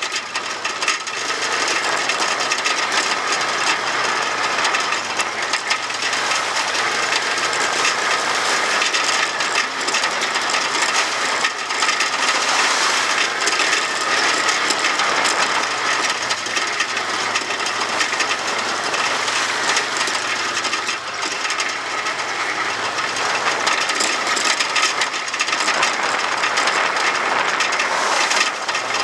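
An ATV riding over a rough gravel and mud trail, heard through a camera mounted on the quad: a steady, dense rattling clatter of the mount and machine over the bumps, with the engine running underneath.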